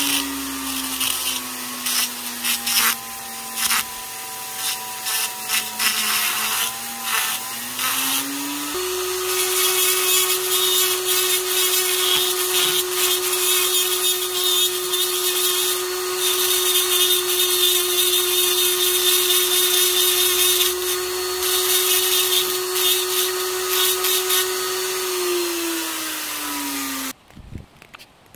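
Flex-shaft rotary tool with a green abrasive bit grinding a small pine carving: a steady motor whine under the gritty hiss of the bit on the wood. The pitch sags, then rises about eight seconds in and holds, then winds down near the end before the sound cuts off abruptly.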